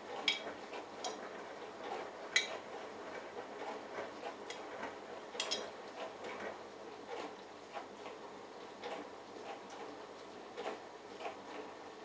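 Bosch Logixx WAS32461 front-loading washing machine tumbling a small load during its prewash: water sloshing in the turning drum, with frequent irregular clicks and taps and a few sharper knocks.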